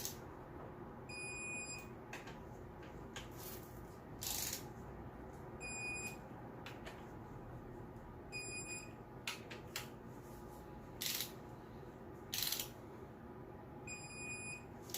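Electronic torque wrench beeping four times, once as each of the four VCT cam-sprocket bolts reaches its set torque. Short knocks and clicks of the wrench working the bolts fall between the beeps.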